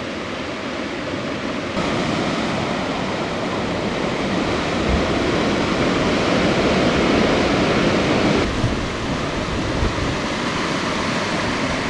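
Sea surf washing and breaking over volcanic shore rocks: a steady rushing, with wind buffeting the microphone. It steps up louder about two seconds in and shifts again a little after eight seconds.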